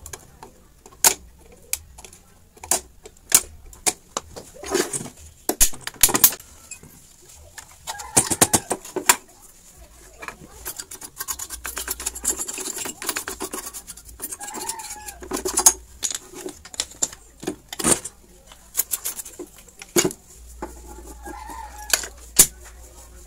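Repeated sharp clicks and knocks of hand tools and a TV circuit board being handled, with a few short bird calls in the background.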